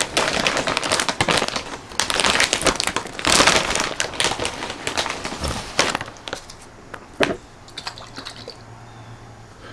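Crunching of pork rinds being chewed: dense crackling that thins to scattered crackles after about six seconds.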